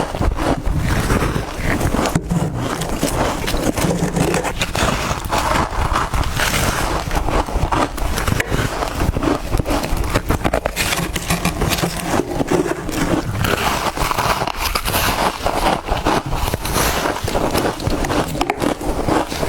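Close-miked biting and chewing of soft freezer frost: a continuous run of crackly crunches.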